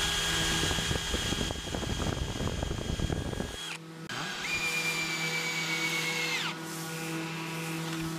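DeWalt cordless drill boring into an oak mast cleat: a steady motor whine with the crackle of the bit cutting wood for about three and a half seconds, then it stops. After a short pause it runs again for about two seconds at a slightly lower pitch without the cutting noise, and winds down.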